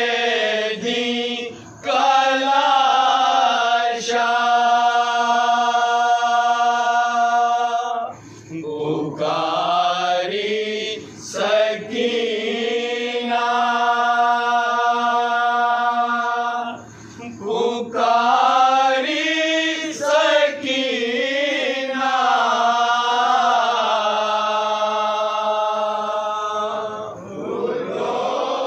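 Voices chanting a nauha, a Shia mourning lament, in long held melodic phrases, with short breaths between phrases about every eight seconds.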